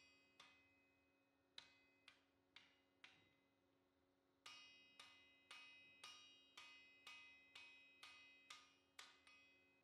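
Faint blows of a hand hammer on the hot steel scythe blade against an anvil, each with a short metallic ring: a few spaced strikes, then from about halfway a steady run of about two a second. The blows are bending the curve back into the blade after fullering and drawing out the edge straightened it.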